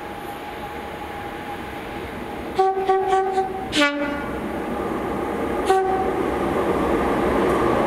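Class 37 diesel locomotive approaching under power, sounding its two-tone horn: a few short toots about two and a half seconds in, a lower-pitched blast just after, and one more short toot about two seconds later. The engine and wheel noise grow steadily louder as it nears.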